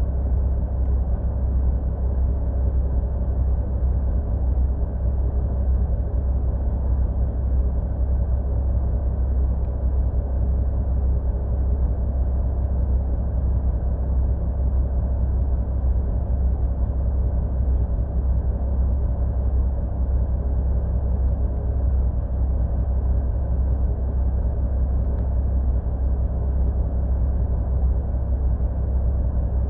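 Dump truck's diesel engine idling steadily with a low, even rumble while the rig stands still.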